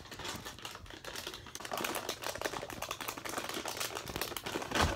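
A plastic dog-treat bag being crinkled and rustled: a dense, crackling run that grows louder about two seconds in. The puppy has learned that this sound means a treat.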